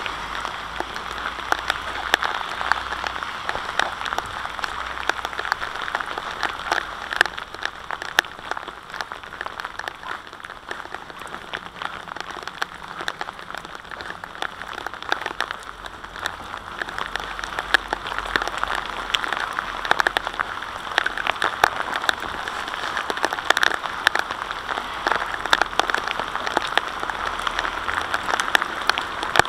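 Steady rain, heard as a dense patter of sharp drop ticks over a constant hiss.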